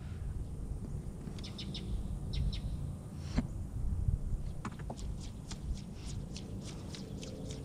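Birds chirping in short, high notes, a few at a time in quick clusters, over a low steady rumble.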